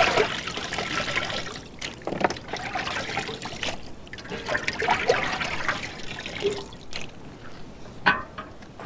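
Water trickling and splashing, with a few light knocks, growing quieter near the end.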